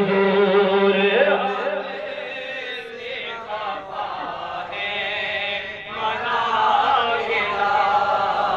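Men's voices chanting an Urdu naat (devotional poem). The chanting is softer in the middle and swells again about six seconds in.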